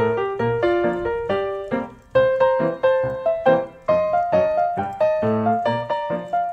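Background piano music: a light melody of quickly struck notes, each fading after it is played, with two short breaks in the phrase.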